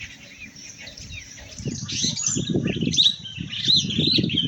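Many birds chirping and calling together in quick swooping notes, growing much louder about a second and a half in, over a low uneven rumble.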